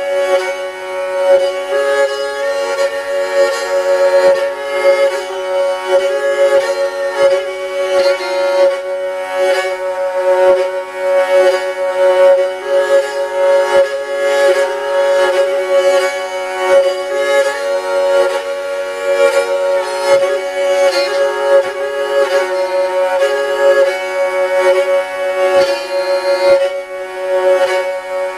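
Jouhikko, a bowed lyre strung with horsehair, being played with a bow: a steady drone note sounds throughout while a simple folk melody moves between a few notes beneath it.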